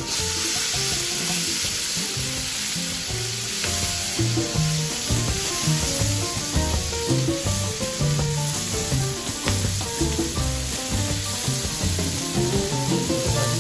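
Langoustines sizzling as they fry in hot olive oil in a wide enamelled-steel paella pan, a steady dense hiss, with soft background music underneath.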